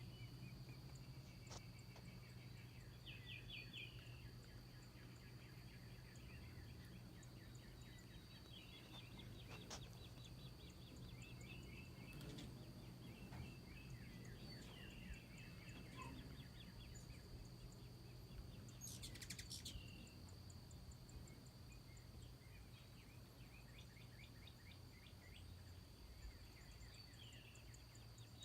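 Faint chattering of hummingbirds: short rapid trills of chips repeated every few seconds, over a steady high insect-like whine and a low hum.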